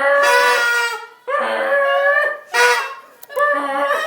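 A run of four loud honks: the first two about a second long each, then a short one and another near the end, each bending in pitch.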